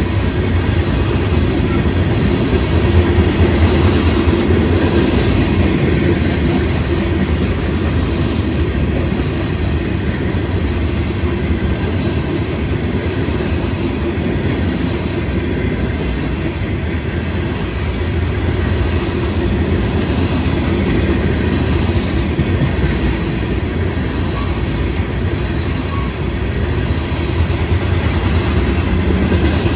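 Freight cars of a Florida East Coast Railway train rolling past close by: a steady, loud rumble of steel wheels on the rails.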